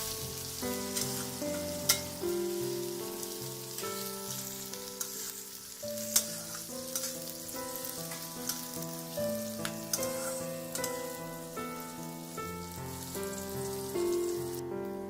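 Chopped onion and green chilli frying in hot oil in a pan: a steady sizzle with scattered crackles. Background music with a simple melody plays over it.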